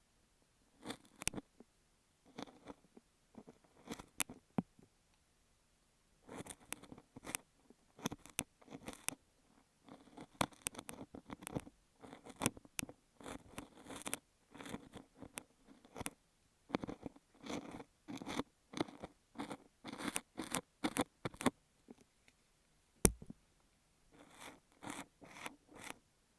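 Ear pick scraping and crunching kinetic sand against an earphone microphone: quick, irregular runs of short crunchy scratches, close and crisp. One low bump about 23 seconds in.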